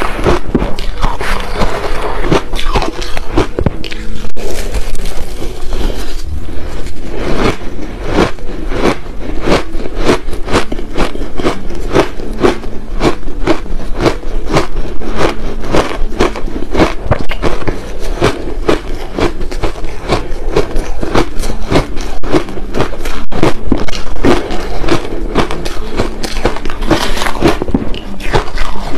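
Close-miked crunching of coloured crushed ice, bitten and chewed in quick crisp crunches several times a second, with a metal spoon scraping and scooping through the ice in a plastic bowl.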